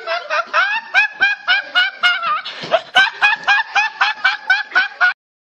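A teenage boy laughing hard in a high, squeaky voice, in quick pulses about four a second, with a gasping breath about two and a half seconds in. The laughter cuts off suddenly near the end.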